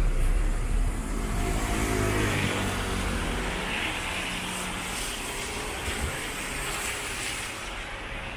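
Street traffic on a wet road in the rain. A vehicle's engine rumble is loudest at the start and fades away, leaving the steady hiss of tyres on wet tarmac.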